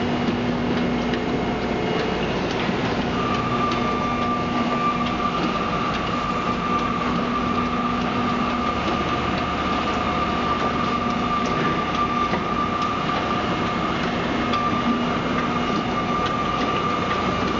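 A 10-cubic-foot grate-topped mortar mixer running, its paddles churning a load of epoxy polymer concrete. It makes a steady mechanical rumble with small rattling clicks, and a steady higher hum joins in about three seconds in.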